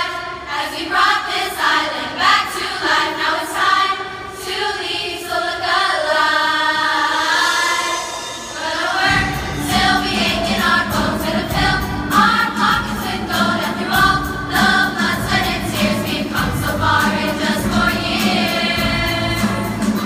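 Large girls' choir singing in unison. About nine seconds in, a deeper, bass-heavy accompaniment joins the voices.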